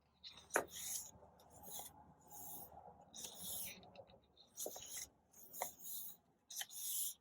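Paper pages of a softcover photobook being turned and handled: a series of short rustles and swishes with a few crisp snaps of paper.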